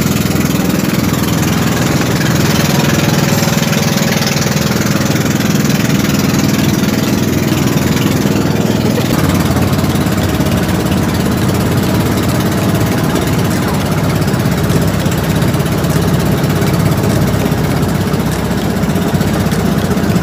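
Engine of a bangka outrigger boat running steadily under way, its note shifting about nine seconds in.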